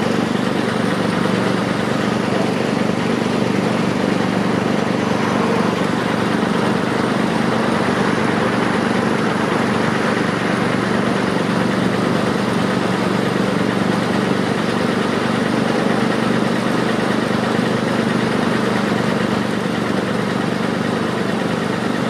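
Heavy diesel construction machinery running steadily at idle, a constant low hum with several steady tones that does not change.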